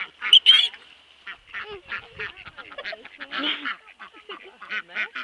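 Ducks quacking in many short, rapid repeated calls, with one loud shrill call about half a second in.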